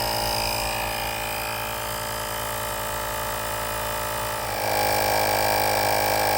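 Siyoteam cordless rechargeable air compressor running steadily, pumping air into a bicycle tyre. It is a small-motor hum that gets louder about four and a half seconds in.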